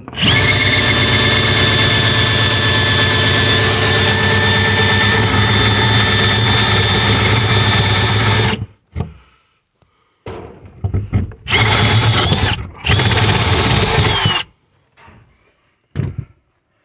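Milwaukee M18 cordless hammer drill boring a hole for a water line: one long run of about eight seconds, then two short runs that spin up and wind down.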